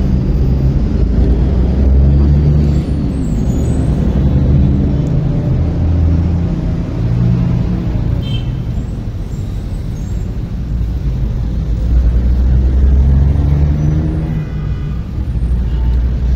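Road traffic on a city street, a steady low rumble of engines with heavy vehicles such as buses and trucks among them.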